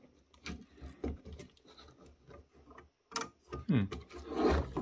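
Small clicks and knocks of a circuit board and display assembly being worked loose from a plastic housing, the sharpest about three seconds in. A brief voice-like sound near the end.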